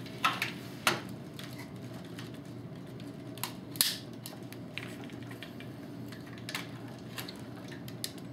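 Plastic clicks and knocks of a large custom Transformers Devastator figure being handled and its Scrapper section taken apart: scattered sharp clicks, the strongest about a second in and near four seconds, with a few fainter ones later.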